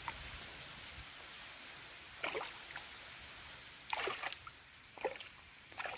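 Shallow water splashing as a hooked fish thrashes at the bank's edge and is grabbed by hand: several short splashes, the strongest about four seconds in, over a steady background hiss.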